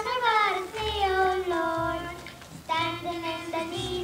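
Children singing a song with long held and gliding notes over a low instrumental accompaniment.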